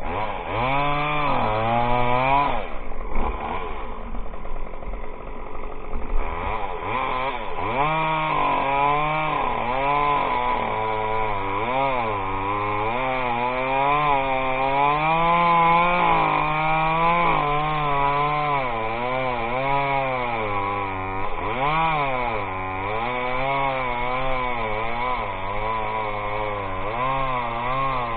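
Chainsaw cutting into a pine trunk during felling. Its engine pitch rises and falls about once a second as the saw works through the cut, with a brief dip about three seconds in.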